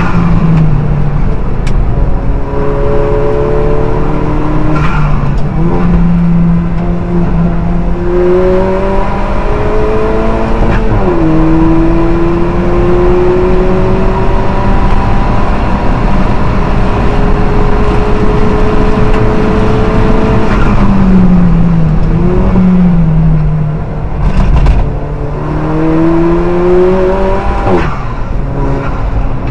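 Alfa Romeo 4C race car's turbocharged four-cylinder engine heard from the cockpit at full throttle, its pitch climbing slowly through each gear and dropping sharply at each upshift. About two-thirds of the way through, the pitch falls and rises a few times as the car slows for a corner, then it pulls hard again.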